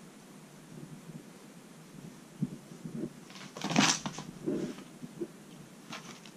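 A kitten's paws scampering on tatami mats, with a few soft thumps and one louder rustling scuffle a little before four seconds in as it pounces on a cat teaser toy.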